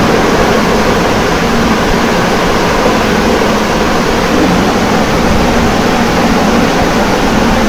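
A steady, loud rushing noise, even from low to high pitch, with no distinct knocks, clicks or tones.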